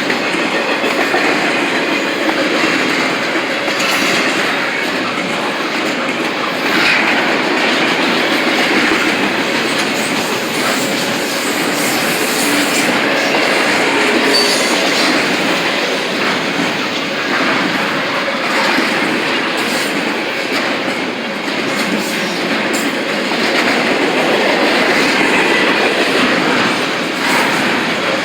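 Train cars rolling past with a steady rumble and rattle, wheels clicking over the rail joints.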